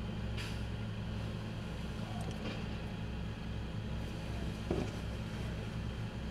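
Rear-loading garbage truck's diesel engine running steadily with a low hum, and a thump about four and a half seconds in as trash is thrown into the rear hopper.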